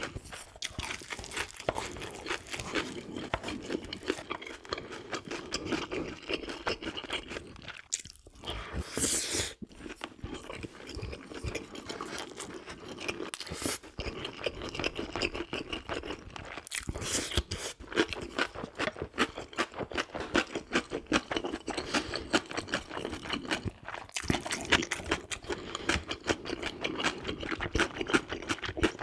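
Close-miked eating: continuous, irregular crunchy chewing and biting of food, with a few louder bursts about nine and seventeen seconds in.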